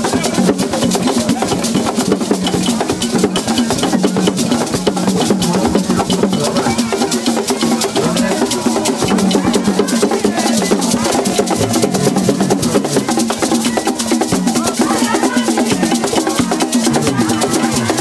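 Several West African hand drums played by hand in a dense, driving rhythm.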